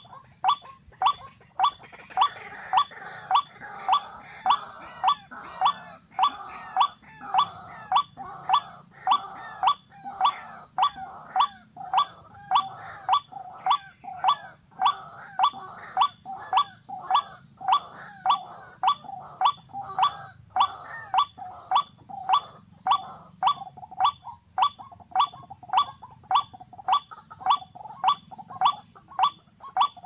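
A watercock's call, one short note repeated at a steady, even pace of about three every two seconds without a break, the lure call of a watercock trap. For the first several seconds it is joined by the scuffling and wing-flapping of birds struggling in the net.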